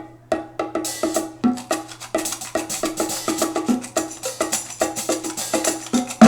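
Music playing through a pair of KEF LSX active speakers, picked up by a microphone in the room: a percussive passage of short, quick pitched hits, about five a second.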